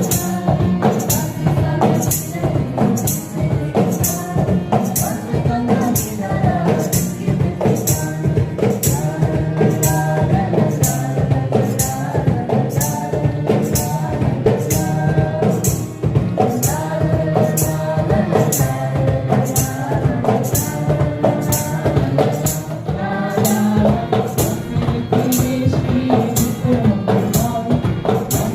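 Music with a steady beat: a bright jingling percussion stroke on every beat over a moving melody.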